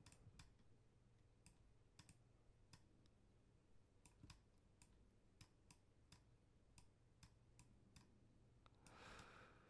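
Faint computer mouse clicks, irregular, one or two a second, over near-silent room tone.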